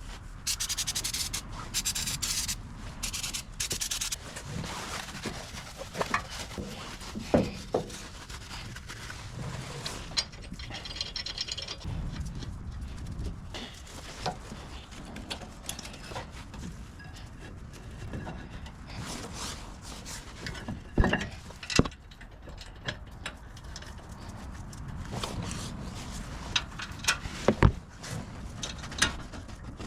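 Hand work on truck brake parts: bouts of rubbing and scraping, with a few sharp metallic knocks scattered through.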